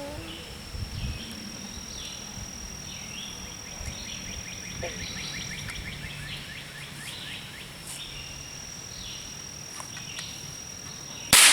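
Birds chirping over a steady high-pitched tone, then near the end a single sharp .22 rifle shot from a Marlin 15YN bolt-action rifle, its report echoing away over a couple of seconds.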